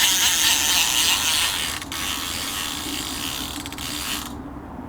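Fishing reel ratcheting in a steady mechanical whirr while a hooked chub is played, loudest at first, easing off and then stopping abruptly near the end.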